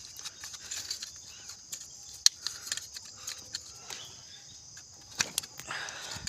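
Scattered light clicks and knocks of ignition coils and their plug connectors being handled and fitted on an engine, with one sharp click a little over two seconds in. Insects chirr steadily in the background.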